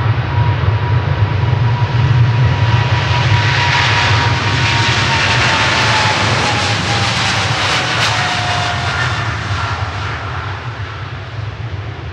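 Jet airliner's engines passing close by: a loud roar with a deep rumble that swells and then fades, while the engine whine drops in pitch as the aircraft goes past.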